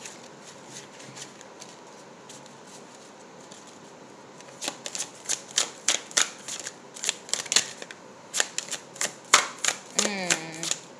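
A tarot deck being shuffled by hand: quiet at first, then from about four seconds in a run of quick, irregular card slaps and flicks, a few a second.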